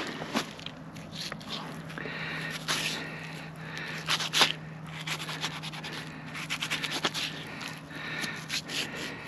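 Knife cutting and scraping as the hide is skinned back from a wild hog carcass: irregular scrapes and rustles, the loudest about four and a half seconds in and a quick run of them about two seconds later. A faint steady low hum lies underneath.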